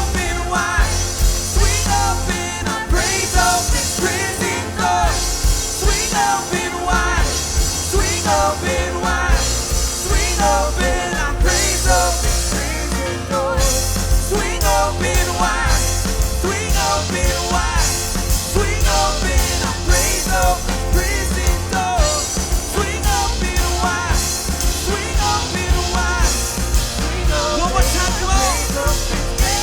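Live worship band playing an upbeat rock-style song, with drums, bass guitar, electric guitars, synth and piano.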